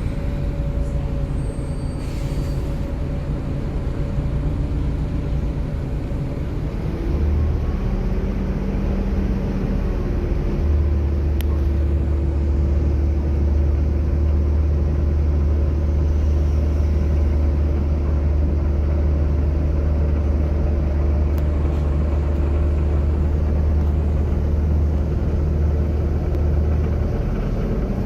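Volvo B7TL double-decker bus's six-cylinder diesel engine heard from on board, a steady low drone that grows stronger about ten seconds in as the bus pulls away, holds while it drives, and eases near the end.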